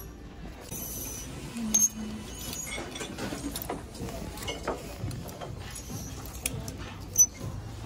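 Clothes hangers sliding and clicking along a clothing rack as garments are pushed aside one after another, with two sharper clacks, about two seconds in and near the end.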